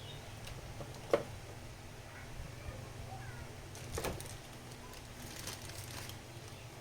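Handling noise while unboxing a scale figure: a few light taps and clicks, the sharpest about a second in and another near the middle, over a steady low hum.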